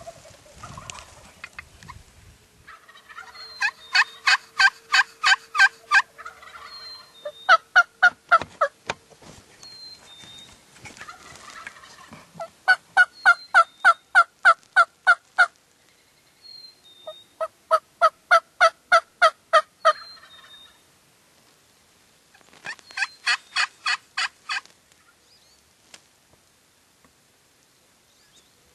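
Wild turkeys calling in five loud bouts, each a rapid, evenly spaced run of about five notes a second lasting two to three seconds, then quiet near the end.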